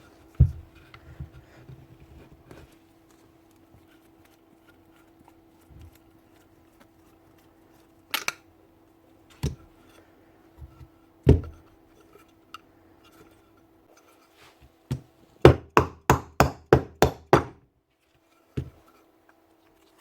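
Sharp knocks from tool work on a Bosch GEX150AC sander being stripped down to reach its bearings: a few single knocks spread apart, then a quick run of about nine strikes, roughly four a second, near the end. A faint steady hum runs underneath.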